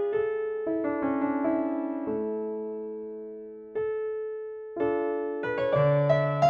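Background piano music: slow chords and single notes that ring and fade, one chord left to die away before the playing picks up again and grows busier.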